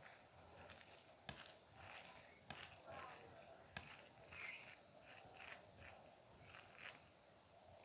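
Fingers mixing cooked rice with cauliflower curry on a plate: soft, quiet squelching and rustling, with three sharp clicks of fingers against the plate.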